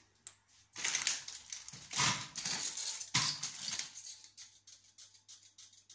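Clear plastic wrapping around a pack of six 1.5-litre water bottles crinkling and rustling as the pack is handled, in several short bursts that fade to faint crackles.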